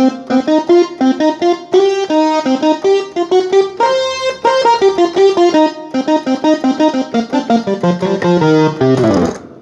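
Sampled piano voice of an S-Engine sound module played from a MIDI keyboard: quick runs of notes and chords, cutting off near the end.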